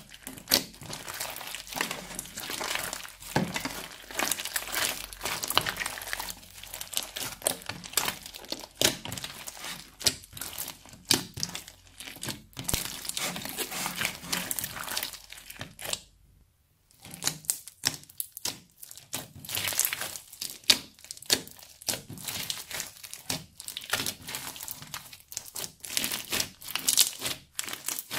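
Crunchy slime being squeezed and worked by hand, giving a dense run of irregular crackles, crinkles and small pops, with a short break just past halfway.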